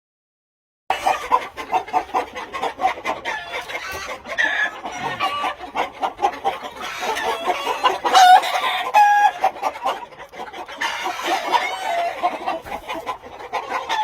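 Gamefowl chickens clucking and calling in a busy chorus, with a rooster crowing around the middle. The sound begins after about a second of silence.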